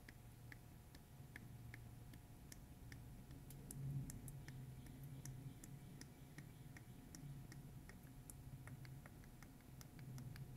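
A quart bottle of motor oil draining through a funnel into a motorcycle transmission's filler: very faint, with scattered irregular soft ticks over a low steady hum.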